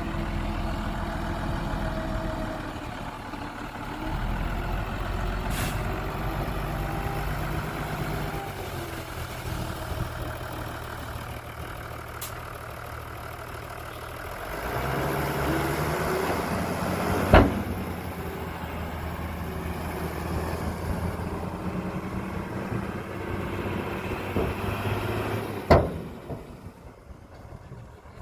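Heavy diesel engines of earthmoving machinery, a bulldozer and dump truck, running under changing load, the engine note stepping up and down several times. Two loud, sharp bangs ring out, one a little past the middle and one near the end.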